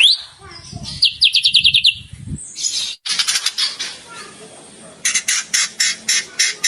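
Songbird calls from a bird-song training (masteran) track. A quick run of rising whistled notes comes first, then a short gap about three seconds in. From about five seconds a fast, even series of harsh chattering notes follows, about three a second.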